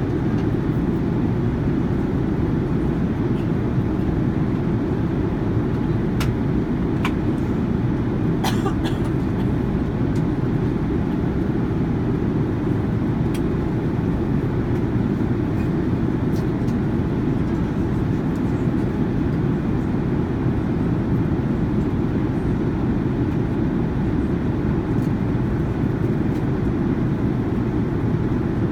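Steady low rumble of airliner cabin noise inside a Boeing 787-9 Dreamliner, with a few faint clicks about six to nine seconds in and again near thirteen seconds.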